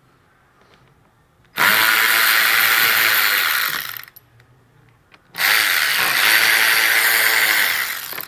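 Cordless electric ratchet spinning out bolts holding the plastic undertray and fender liner: two runs of a couple of seconds each, the motor whine winding down at the end of each.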